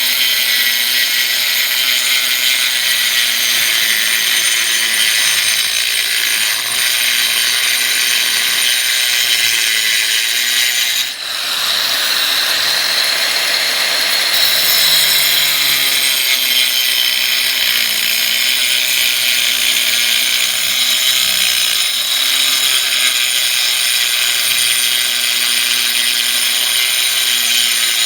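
Power tool running steadily with a high-pitched whine, cutting off briefly about eleven seconds in and then starting again.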